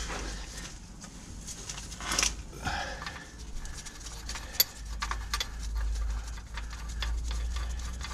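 Small metal clicks and clinks as engine bolts and a locking tool are worked loose and handled by a gloved hand, with one sharper click about halfway through, over a low steady hum.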